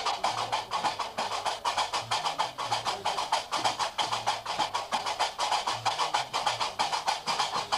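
Gnawa music: qraqeb iron castanets clacking in a fast, steady rhythm over short, low plucked notes of a guembri bass lute.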